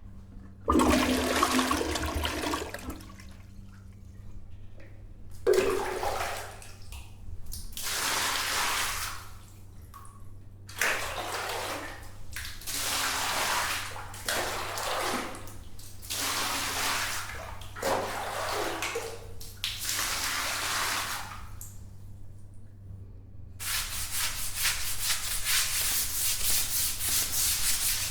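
Water running in a bathroom in a string of rushes a few seconds long that stop and start again, then a longer, steadier run near the end. A low steady hum sits underneath.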